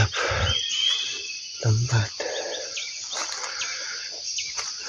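Steady high-pitched insect chorus, with short bird chirps over it: one about a second in and several more in the second half.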